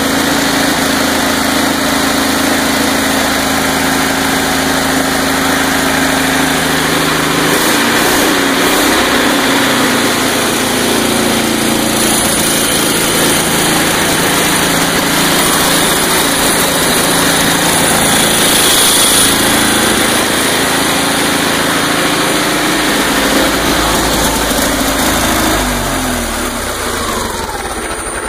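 Ford GAA 18-litre V8 tank engine, fuel-injected with twin Garrett turbochargers, running steadily on its very first start. A thin high whine rides above it in the middle, and the revs fall away near the end.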